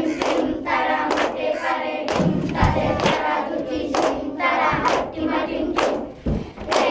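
A group of children singing together, with sharp rhythmic strikes about once a second under the voices.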